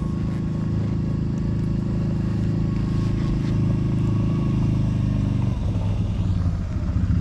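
ATV engine running steadily under way. About five and a half seconds in its note drops and wavers as the machine slows, then it settles into a lower steady note near the end.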